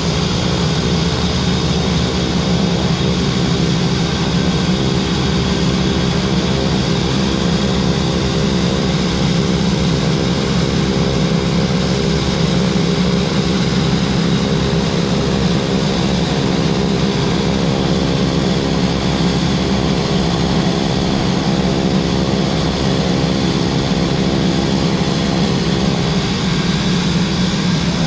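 Beechcraft King Air 350's twin PT6A turboprop engines running at ground idle with propellers turning: a steady, loud turbine whine and propeller drone, edging up slightly in pitch over the first few seconds and then holding.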